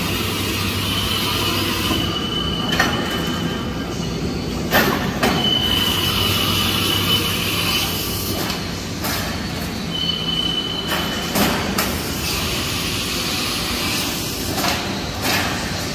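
Haas GR-710 CNC gantry router running: a steady low machine hum with a thin high-pitched whine that comes and goes three times, and a few short knocks.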